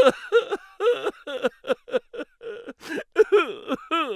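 A rapid string of short, wavering vocal syllables, about four a second, each bending up and down in pitch, like comic gibberish babble.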